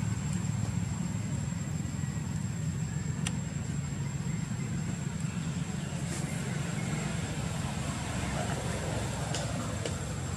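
Steady low background rumble, with a thin high steady tone over it and a few faint clicks.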